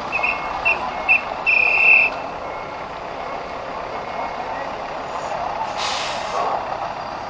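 Fire rescue truck maneuvering into place with its engine running: a reversing alarm beeps several times in the first two seconds, the last beep held longer. About six seconds in comes a short hiss of air from the brakes as the truck is set.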